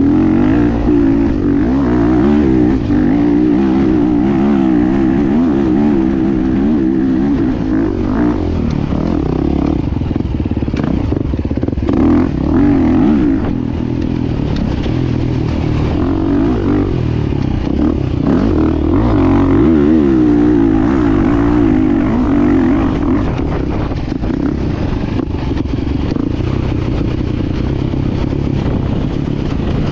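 2024 KTM EXC-F 350 enduro motorcycle's single-cylinder four-stroke engine running continuously while being ridden, its pitch rising and falling again and again as the throttle is opened and closed.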